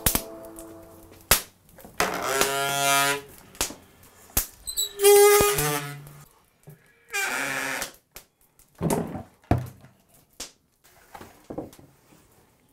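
Scattered knocks and clicks with three drawn-out pitched squeaks, each about a second long.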